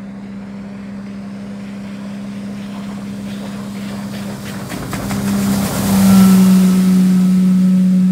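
Four Winns 180 bowrider's Volvo SX sterndrive engine running at speed, a steady drone that grows louder as the boat comes close, with a rush of hull and spray noise peaking about six seconds in.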